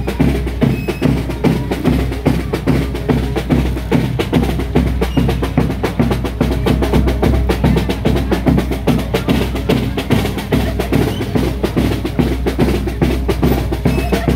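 Procession drums, a large bass drum among them, beaten in a fast, steady rhythm of many strokes a second: the drumming for a gigantona giant-puppet dance.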